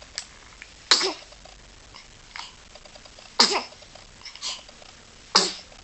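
Newborn baby hiccuping: three sharp hiccups about two seconds apart, each with a tiny squeak that falls in pitch, with softer catches of breath between them.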